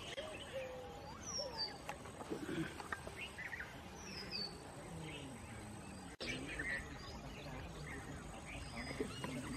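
Background birds calling and chirping, including two short high whistles that fall in pitch, with faint voices underneath; the sound cuts out for an instant about six seconds in.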